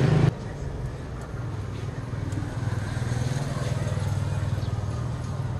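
A motor vehicle's engine running steadily, a low even hum with faint ticks and street noise above it. A louder, noisier passing sound cuts off abruptly just after the start.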